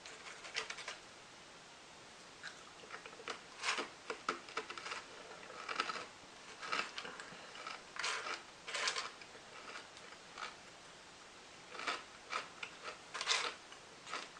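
Close-up chewing of a crunchy sesame garlic snack mix: irregular crunches, several bunched together at a time, between quiet gaps.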